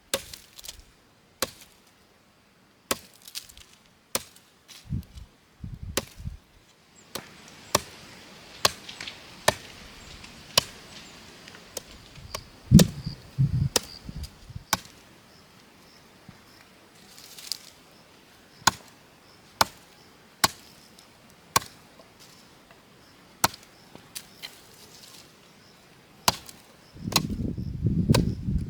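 Repeated sharp chopping strikes, a blade hitting wood or plant stems, at roughly one a second and sometimes in quick pairs. A louder low rumbling noise starts near the end.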